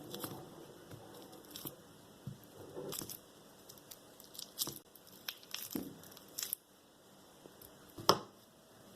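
Scattered rustling, crinkling and light knocks of food being handled in a kitchen, with one sharp click about eight seconds in.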